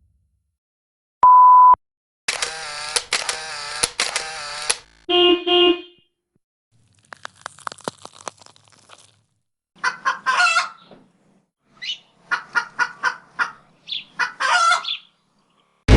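A string of separate stock sound effects with silent gaps between them: a short steady censor-style bleep, a noisy stretch of a couple of seconds, a brief honk, faint clicking, then several bursts of rapid clucking and squawking like a chicken or goose.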